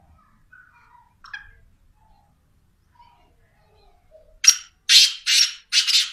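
Caged black francolin calling: four loud, harsh, rasping notes in quick succession in the last second and a half, after a few faint short chirps.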